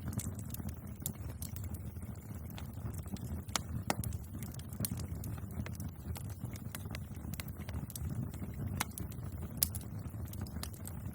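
Wood bonfire crackling: irregular sharp pops and snaps over a steady low rumble, with a few louder snaps around four seconds in and again near nine to ten seconds.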